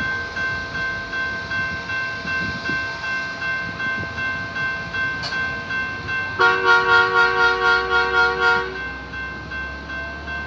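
Railroad crossing bell ringing in a steady pulse. About six seconds in, a trackmobile's multi-note horn sounds one blast of about two seconds over the bell.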